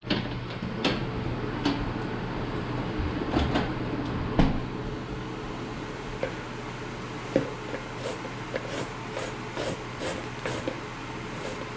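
Green papaya being shredded on a handheld grater: rasping strokes about three times a second from about eight seconds in. Before that, scattered knocks and clicks of handling, over a steady low hum.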